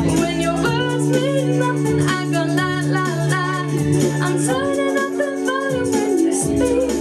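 Recorded pop music: steady held chords, with a wavering sung melody line above them.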